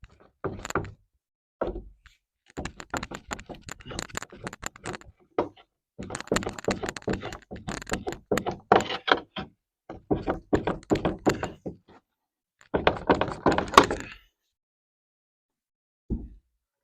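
Wooden window-frame pieces being knocked into place in a log wall: several runs of rapid knocking and tapping, each lasting one to three seconds with short pauses between, and one last knock near the end.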